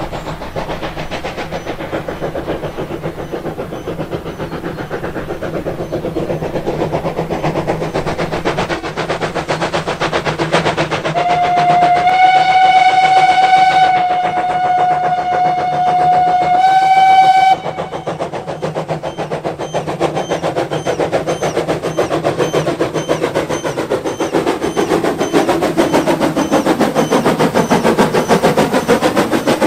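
Steam locomotive 98 886, a Bavarian GtL 4/4 tank engine, running past with a steady rhythmic beat. About eleven seconds in, its steam whistle gives one long blast of some six seconds, which rises slightly in pitch just before it cuts off.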